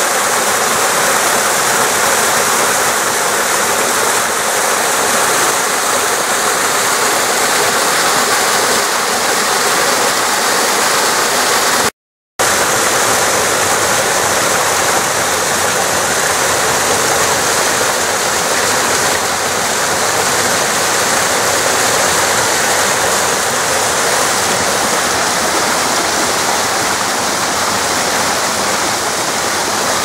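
Small mountain waterfall pouring over rocks into a pool: a steady, loud rush of falling water, which drops out abruptly for about half a second about twelve seconds in.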